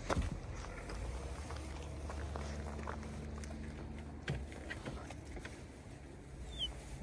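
Handling things in the open boot of a car: a few scattered knocks and rustles over a low steady rumble, with a short high chirp near the end.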